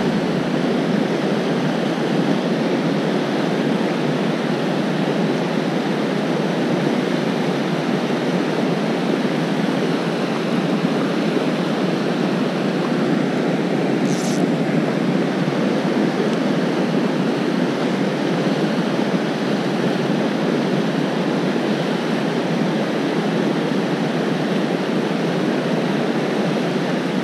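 Steady rushing of river water running over rocks in riffles and rapids, with a brief high-pitched hiss about halfway through.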